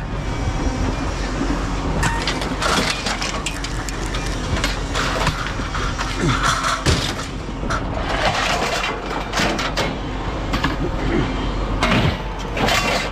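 Repeated clanks, knocks and scrapes of scrap metal being handled and loaded into a vehicle, with a few short scraping squeals among the impacts.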